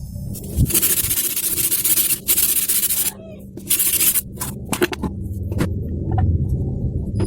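Hand sanding of a workpiece: a series of rough rubbing strokes, each starting and stopping abruptly, some long and some short.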